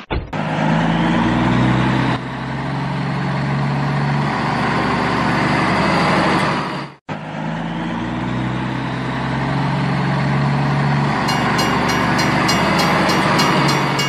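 Dubbed-in heavy diesel engine sound effect revving up and then running steadily. It cuts out abruptly about halfway through and starts again with the same rise. A rapid, regular high ticking joins in near the end.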